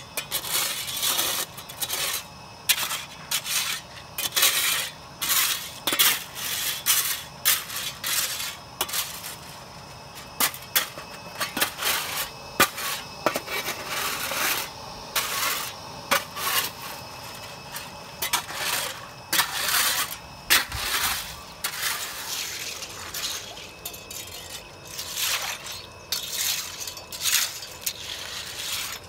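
A shovel, then a rake, scraping and churning waterlogged gravel, sand and charcoal in a clogged filter bed: an irregular run of gritty scrapes and stony clinks, roughly two strokes a second. The stirring loosens the built-up clogging so water can flow through the filter again.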